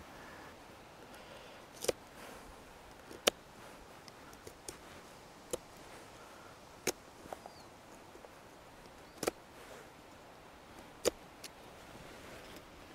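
Knife cutting a hard lump of birch chaga into small pieces against a wooden log: a sharp crack every second or two as the blade snaps through, with a few lighter clicks between.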